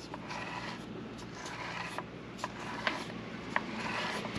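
Freshly rebuilt Ford Fusion rear differential's ring and pinion gears being turned dry, still without oil: a steady rubbing, grinding gear noise with a scattering of sharp clicks, growing a little louder near the end.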